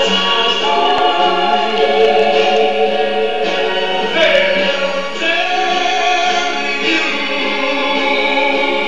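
Music: a choir singing sustained chords that change every second or two.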